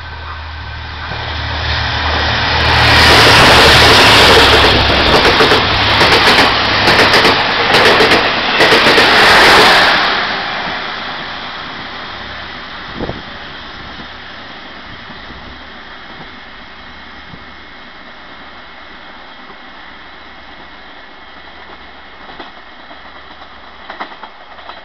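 Taiwan Railways passenger train passing through the station at speed. A low rumble swells to a loud rush of wheels on rail about three seconds in, pulsing as the cars go by, then fades away after about ten seconds as the train recedes.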